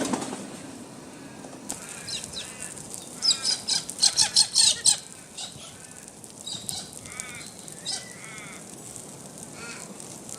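Wild birds calling outdoors: a cluster of loud, harsh calls about three to five seconds in, then softer repeated arched calls.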